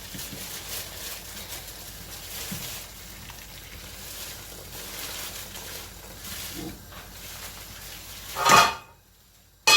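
Seasoned meat cooking in a pot on the stove after hot water has been added, a steady sizzling, bubbling hiss. A brief loud knock comes near the end.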